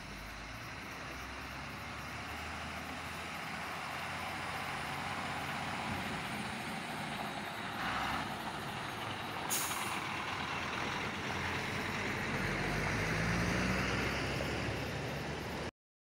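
Tipper truck's engine running as it drives up close, growing steadily louder, with a short hiss about halfway through. The sound cuts off suddenly just before the end.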